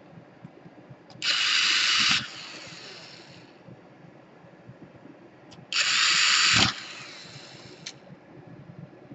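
Electric screwdriver running in two short whirs of about a second each, driving out small laptop screws, with a few light clicks between.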